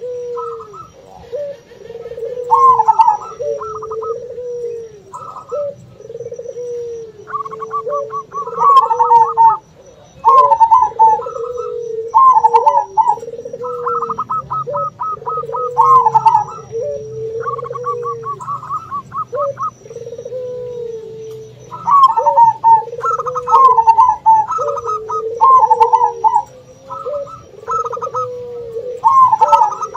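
Zebra doves (perkutut) calling in rapid staccato trains of cooing notes, overlaid on a puter dove's lower, repeated bowed coos, with the two species calling back and forth without pause.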